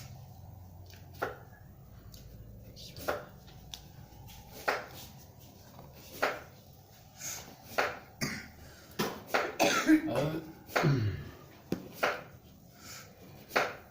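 A person coughing over and over in short coughs, one every second or two, coming closer together about nine to eleven seconds in, with some throat clearing.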